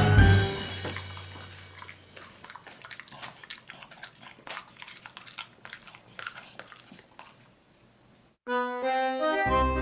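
A beagle chewing food with its mouth open, a string of soft, irregular wet clicks and smacks. Before it, music ends on a final hit and dies away. About eight and a half seconds in, accordion tango music starts and becomes the loudest sound.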